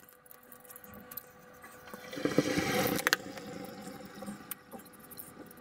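Utility knife blade scoring through masking tape laid over floor tile: a faint scratching, then a louder scraping rasp about two seconds in that lasts about a second and ends with a sharp click.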